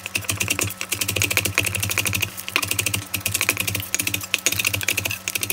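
Santoku knife slicing green onion on a wooden cutting board: a fast, even run of blade taps against the board, several a second.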